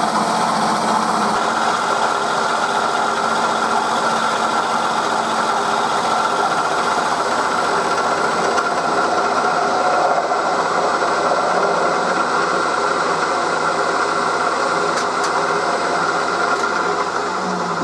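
1938 Bridgeport M-head milling machine running steadily, its end mill turning at about 1000 RPM and taking a roughing cut across a cylinder block under flood coolant. A constant machine hum with a steady high tone over it.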